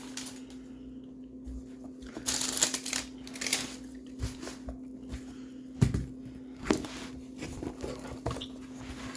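Plastic packaging being handled and opened: crinkling rustles, loudest a few seconds in, and a couple of sharp knocks later, over a steady low hum.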